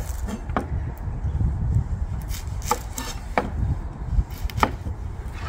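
Kitchen knife cutting a red onion on a cutting board, the blade striking the board in irregular knocks, over a low rumble of wind on the microphone.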